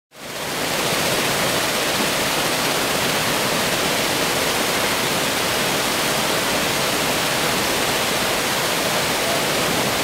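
Steady rush of flowing water, fading in over the first second and holding even throughout.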